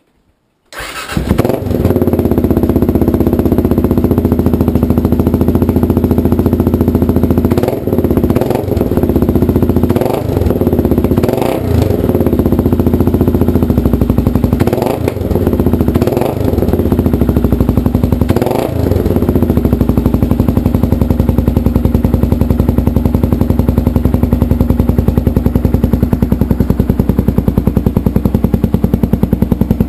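2008 Kawasaki KLR 650's single-cylinder four-stroke engine, breathing through a SuperTrap ISD2 racing exhaust with nine diffuser discs, starts about a second in and runs loud. In the middle it is given about seven quick throttle blips, then it settles to a steady, evenly pulsing idle.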